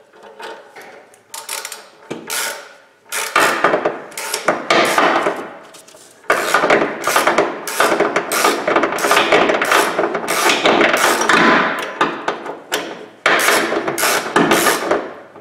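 Metallic clicks and knocks of a hand tool working a steel stud into an exhaust pipe flange, coming in uneven clusters of strokes that grow denser about six seconds in.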